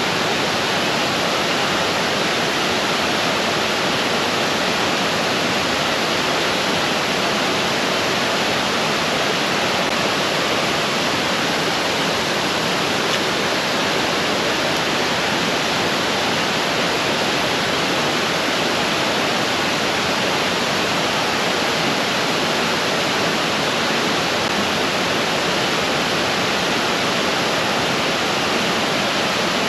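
Rushing creek water pouring over falls, a loud, steady rush, swollen with recent rain.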